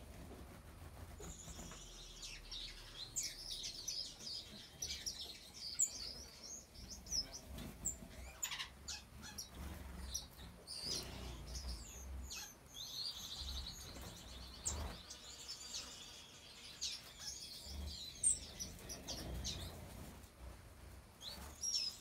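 A mixed flock of small exotic finches, among them star finches, cordon bleus and Senegal firefinches, chirping and calling throughout. Many short high calls overlap with stretches of rapid high trilling.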